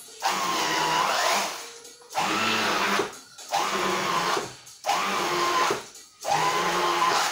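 Electric hand mixer churning thick minced-meat filling in short bursts, switched on and off five times. Each burst is a motor whine that rises in pitch as it spins up, then runs steadily before cutting off.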